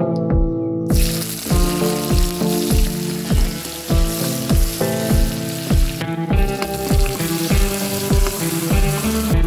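Sliced onion and garlic sizzling in hot oil in an aluminium wok, stirred with a metal spoon; the sizzle starts suddenly about a second in. Background music with a steady beat plays throughout.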